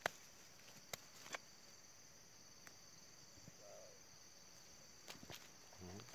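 Steady high-pitched insect chorus of crickets, with a few short clicks and scrapes of dry twigs and leaves being cleared from the ground by hand and machete, near the start and again about five seconds in.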